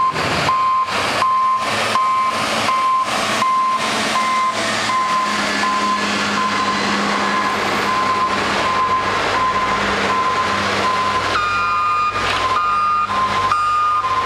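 Public works truck's reversing alarm beeping at an even pace over its running diesel engine, the truck backing up. About three-quarters of the way in, a second, higher-pitched backup beeper joins it.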